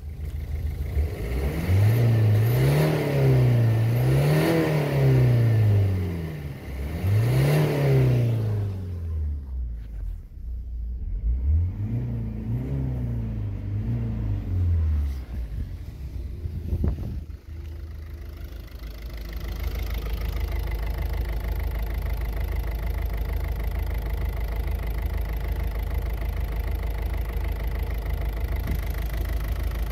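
Ford Focus 1.6 TDCi four-cylinder turbodiesel engine revved about five times, its pitch climbing and falling each time, heard at the exhaust under the car. It then settles to a steady idle.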